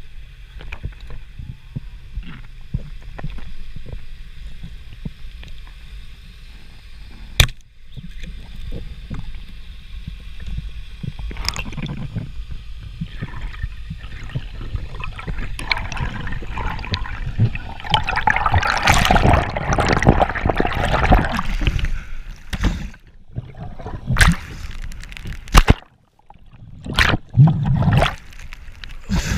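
Underwater sound picked up through a diving camera's housing: a steady low water rumble with scattered sharp clicks and knocks, and a louder gurgling rush of water about two-thirds of the way through.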